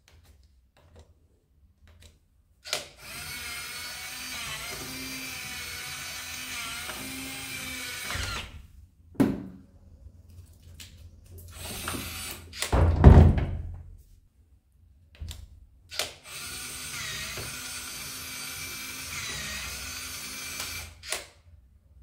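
Nuki Smart Lock Pro's motor turning the door's lock cylinder: two steady motorised runs of about five seconds each, with a loud heavy thump between them and a few small clicks.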